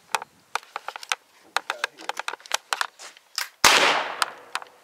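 A 20-gauge single-shot shotgun fires one loud shot about three and a half seconds in, after a series of sharp clicks and knocks from handling the gun.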